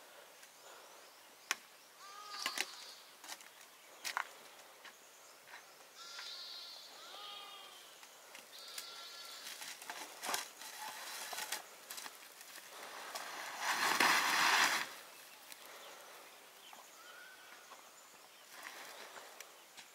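Sheep bleating off and on, several short wavering cries, with scattered light clicks and knocks of cooking utensils. A louder rushing hiss lasts about two seconds, starting about 13 seconds in.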